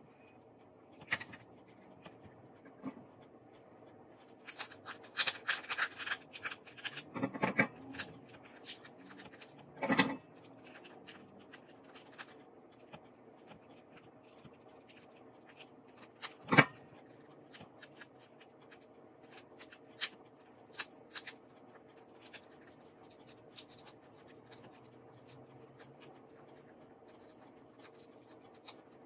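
Raw lobster tail shells being cut and pried open by hand and with a handheld plastic shell cutter: scattered crackles, scratches and sharp clicks, thickest in the first half, then single sharp clicks now and then.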